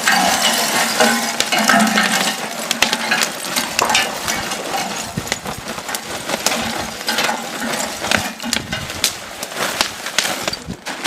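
Lumps of wood charcoal clinking and rattling as they are tipped from a bag into a grill, a dense run of small knocks that dies away near the end.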